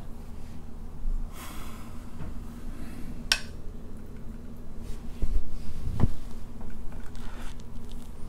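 Tableware being handled during a meal: a metal spoon clicking against a plate about three seconds in, then a couple of dull knocks as the plate is moved, over a steady low hum.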